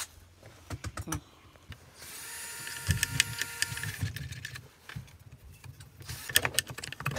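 Scattered clicks and knocks of parts being handled, with a small motor whirring steadily for about two seconds in the middle.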